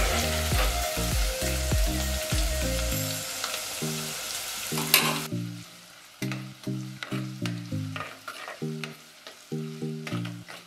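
Chopped garlic, ginger, green chillies and curry leaves sizzling in hot coconut oil in a clay pot, stirred with a spoon that taps and scrapes against the pot. The sizzle drops to a softer level about five seconds in.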